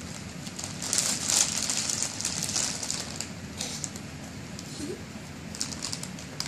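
Foil chip bag crinkling and rustling as a Great Dane roots in it and a child tugs at it. It is loudest about one to three seconds in, with scattered crackles after that.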